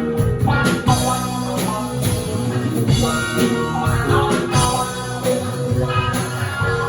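A live rock band playing, with guitar over a drum kit.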